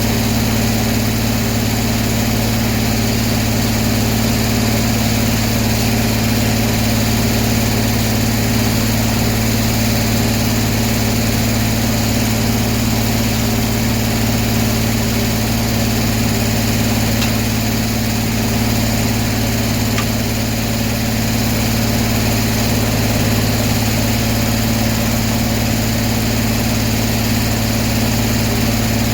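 Sawmill's engine running steadily at an even speed, with a low, constant hum.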